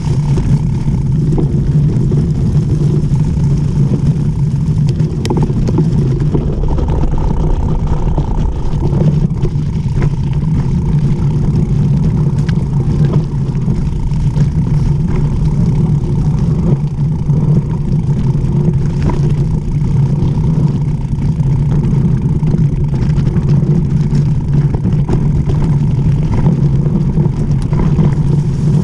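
Steady rushing noise of a mountain bike descending fast: wind on the bike-mounted camera's microphone and tyres rolling over slushy dirt, with scattered clicks and rattles from the bike.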